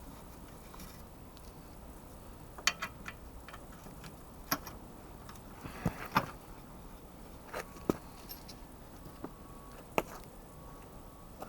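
Hand tools and metal parts clinking and knocking as they are handled: scattered sharp clicks, a quick cluster about three seconds in, then single knocks every second or two.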